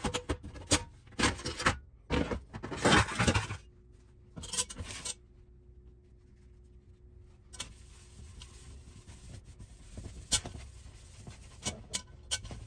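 Cloth and cast iron rubbing and scraping as a cast iron Dutch oven is handled with a towel and shifted on a metal baking sheet, in several bursts over the first five seconds, the loudest about three seconds in. Later comes a fainter steady hiss with a few light clicks.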